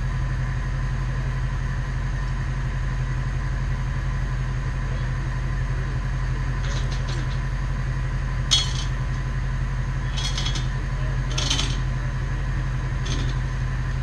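Bucket truck's engine running steadily at idle, with about five short metallic clinks in the second half, the loudest about eight and a half seconds in.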